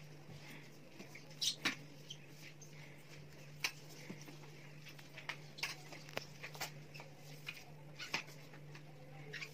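A string mop being pushed across a hard floor by a child in flip-flops: scattered light taps and scuffs, about eight of them at irregular intervals, over a faint low steady hum.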